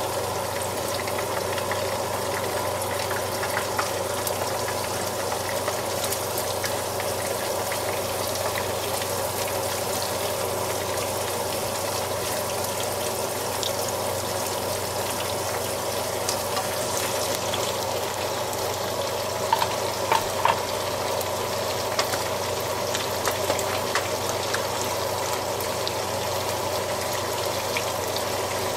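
Meatballs and sliced onion sizzling steadily in hot oil in a frying pan, with a wooden spatula stirring through them. A few louder clicks come about two-thirds of the way through.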